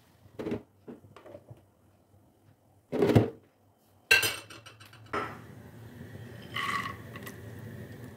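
A spoon scrapes through onions and chicken in a non-stick frying pan, then a loud knock about three seconds in. About four seconds in, a glass pan lid is set down on the pan with a ringing clink, followed by a steady low hiss of the food cooking under the lid.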